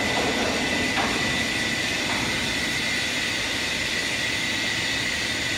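Hydraulic pipe-bending machine and its power unit running: a steady hum and hiss with a thin, high, constant whine, and a faint click about a second in.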